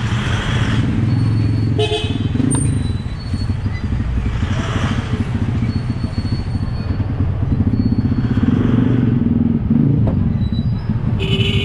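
A motorcycle-type engine running close by, a steady low rumble with rapid pulsing, amid street noise.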